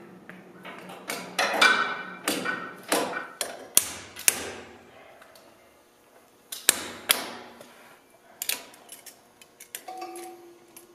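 A hand hammer driving a chisel or punch against the steel of a Flakpanzer's track tension adjuster, knocking out seized cotter pins. Irregular sharp metal-on-metal blows, each ringing briefly, come mostly in the first four and a half seconds, followed by a few sparser taps and lighter clicks.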